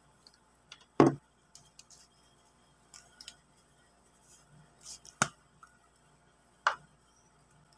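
Sparse clicks and knocks from a can of shaving foam and plastic containers being picked up and handled on a tabletop. A loud knock comes about a second in, then two more sharp ones later, with small ticks between.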